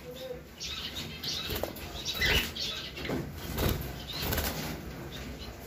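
Budgerigars flapping their wings in a wire cage, in several short flurries about a second apart.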